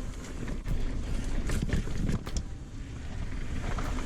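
Wind buffeting the action camera's microphone during a mountain-bike descent, with the knocks and rattle of the Ibis Ripmo AF going over rough ground; a cluster of sharp knocks comes about one and a half to two and a half seconds in.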